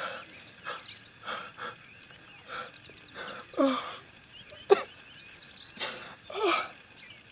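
Short breathy sobs and gasps, one every second or so, the sharpest about two-thirds of the way in, over faint high chirping.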